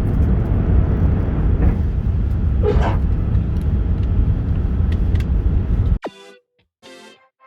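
Heavy, steady low roar of jet engines and airflow inside the cabin of a British Airways Airbus A380 during departure, with a few faint rattles and a brief higher squeak about three seconds in. Near the end it cuts off suddenly and quiet music begins.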